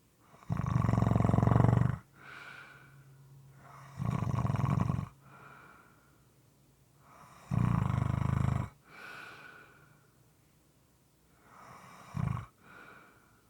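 A person snoring, moist and slightly irregular: three long snores about three and a half seconds apart, then a short one near the end, each followed by a softer breath.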